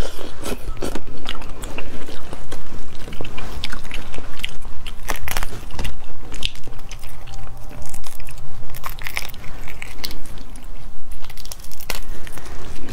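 Close-miked biting and chewing of boiled starfish, with dense crunching and crackling as the spiny, crusty arms are bitten and broken open by hand.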